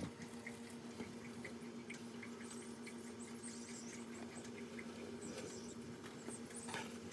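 Faint steady low hum, with soft light ticks about three times a second and a few brief scratchy rustles.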